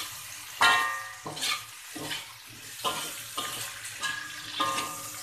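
Spatula scraping and knocking against a wok while stir-frying pea eggplants and chillies, over a steady sizzle. About eight strokes, each leaving a short metallic ring from the wok; the loudest comes about half a second in.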